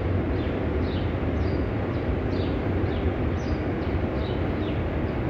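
Steady low background rumble, with a bird repeating a short falling chirp about twice a second.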